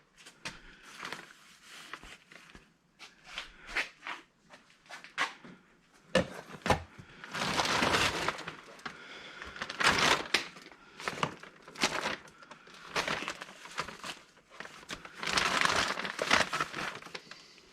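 Parts of an old electric angle grinder being handled and pried apart: irregular clicks and knocks with several longer scraping, crunching passes, the longest about midway and again near the end.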